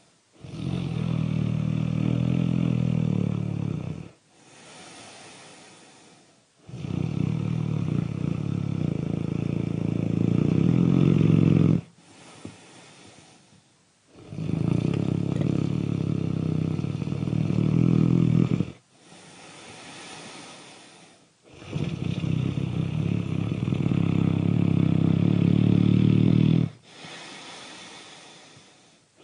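Loud snoring: four long, buzzing snores about seven seconds apart, with a much quieter breath between each.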